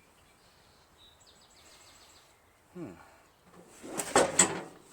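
A quick cluster of sharp knocks and clinks about four seconds in, as metal seat brackets are handled and lined up against each other, with faint bird chirps in the quiet before it.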